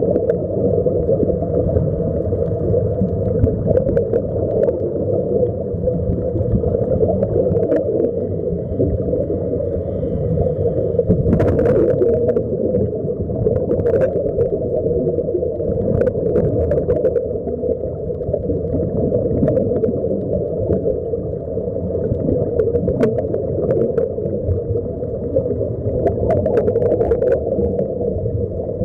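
Steady muffled underwater rumble and rush of water, as heard through a camera's waterproof housing, with sharp clicks now and then.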